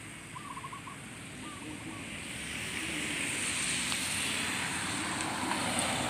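Traffic on a wet road: the hiss of car tyres on wet pavement, building from about two seconds in and holding steady.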